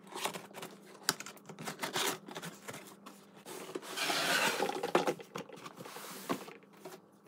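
Cardboard toy box being opened by hand: flaps pulled back, with cardboard scraping and rustling and scattered knocks and clicks. A longer stretch of rustling scrape comes around four to five seconds in.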